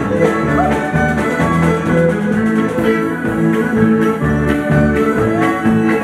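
A live Ukrainian old-time band playing a lively dance tune: fiddle lead with sliding notes over guitar and a keyboard-like backing with a steady beat.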